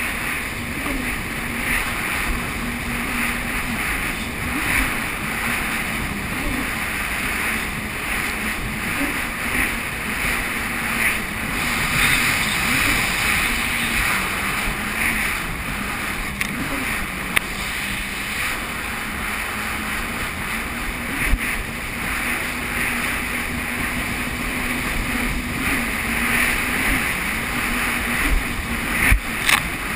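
Jet ski engine running steadily under way, its note wavering a little, over a constant rush of wind and water. A few sharp knocks come near the end.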